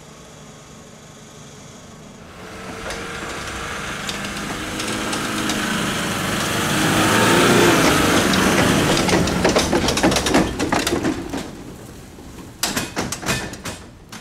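Nissan Navara pickup's diesel engine under load, towing a livestock trailer over rough woodland ground. It grows louder as it approaches and passes close, loudest about halfway through, then fades as it drives away. Sharp crackling of tyres over dry leaves and twigs runs through the second half.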